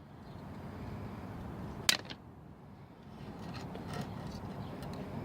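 Wind buffeting the microphone, with one sharp metallic click about two seconds in and a few faint ticks as the multitool is handled.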